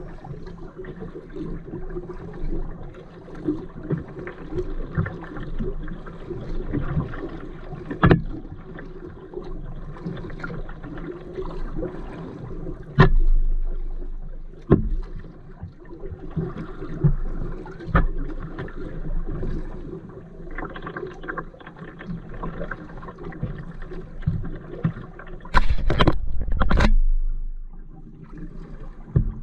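Kayak paddling: paddle blades dipping and pulling through the water in an uneven rhythm of splashes, with a few sharp knocks along the way and a louder burst near the end.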